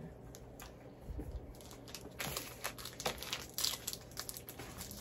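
Plastic snack wrappers crinkling as they are handled and opened, in irregular rustles that grow busier about two seconds in.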